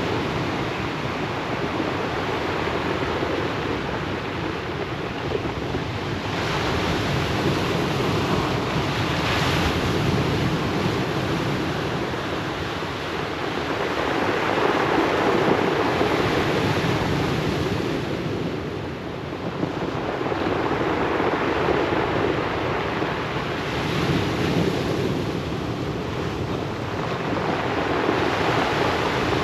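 Ocean surf breaking and washing up the shore in a continuous rush that swells and eases every several seconds.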